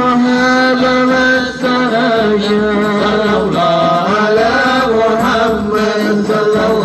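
Men chanting an Arabic salawat in praise of the Prophet, a slow melodic chant with long held notes.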